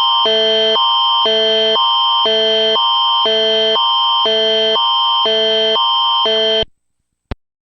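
Canadian Alert Ready emergency attention signal: an electronic alarm tone switching back and forth between a higher and a lower chord about twice a second. It cuts off abruptly near the end, and a brief click follows.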